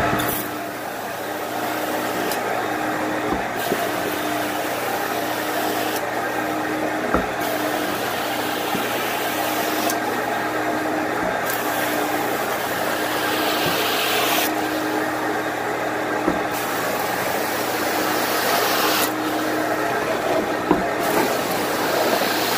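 Carpet cleaning machine running steadily on carpeted stairs. A higher hiss comes and goes in strokes every couple of seconds, with light knocks in between.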